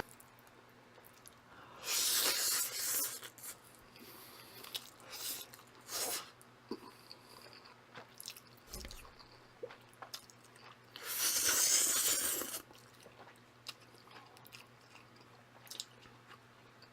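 A person eating Samyang Jjajjaroni instant jjajang ramen up close to the microphone: two longer slurps, about two seconds in and again about eleven seconds in, with chewing and wet mouth clicks in between.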